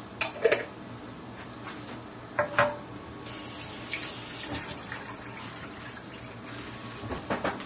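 Kitchen tap running steadily into a sink, with dishes or utensils clinking three times, about half a second, two and a half seconds and seven seconds in.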